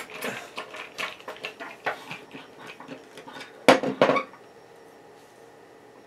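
Pliers and a screwdriver being picked up and handled on a tabletop: a run of light clinks and knocks, with two louder knocks just before four seconds in, after which the handling stops.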